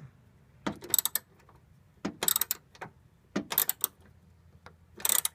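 Socket ratchet wrench loosening a bolt: four short bursts of rapid clicking, about one every second and a half, as the handle is swung back and forth.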